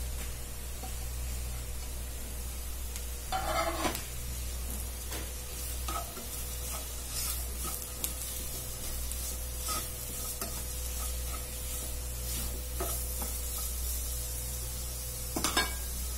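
Sliced red onions sizzling in hot coconut oil in a non-stick pot, stirred with a spatula that scrapes and taps against the pan. There are louder scrapes about three and a half seconds in and near the end, over a faint steady hum.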